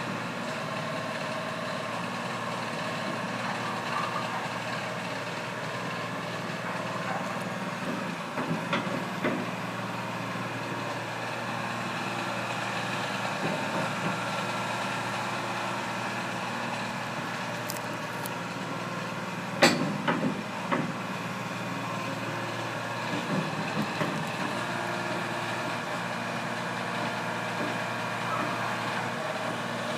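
Excavator diesel engine idling steadily, with a few short knocks; the sharpest comes about twenty seconds in.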